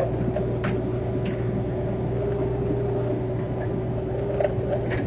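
Excavator engine running steadily, with two short sharp knocks about a second in.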